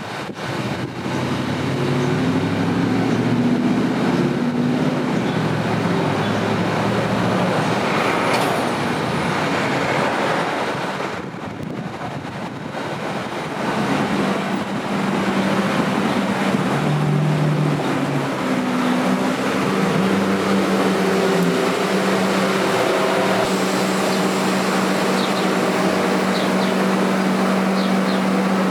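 Staten Island Railway R44 subway train running, a steady noise with low humming tones that shift in pitch, easing off briefly about a third of the way in and ending with a rising whine.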